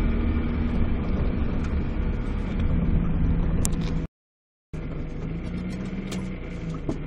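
Car engine and road noise heard from inside the cabin while driving, the engine note shifting a little; the sound cuts out completely for about half a second just past the middle.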